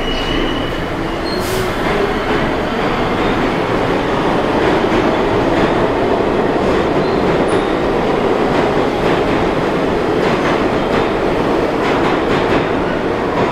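R142 subway train running through the tunnel toward the station without stopping, a loud steady rumble with faint clicks of wheels over rail joints. A brief high wheel squeal fades out just after the start.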